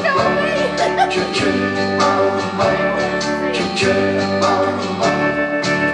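Recorded music with singing and instruments, cutting off abruptly near the end.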